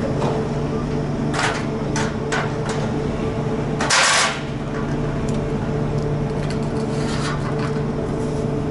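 Scattered knocks and clicks of things being handled, with one louder rushing burst about four seconds in, over a steady mechanical hum.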